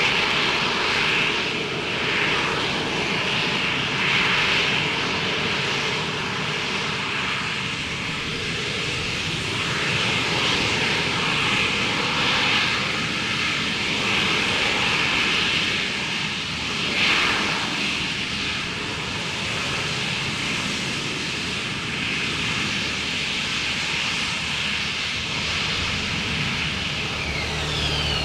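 AV-8B Harrier's Rolls-Royce Pegasus turbofan running at hover power as the jet comes down to land vertically: a steady, loud jet noise with a strong high hiss, swelling slightly now and then.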